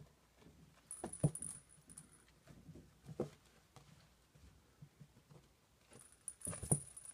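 Ferret scampering and pouncing on carpet at a feather teaser toy: soft, uneven thumps of its paws and body. Louder bumps about a second in and near the end come with a bright, small jingling.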